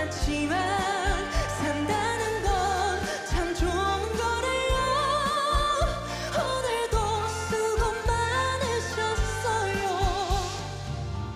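A male voice singing a slow Korean trot ballad with vibrato, over a band accompaniment with steady bass, easing off near the end.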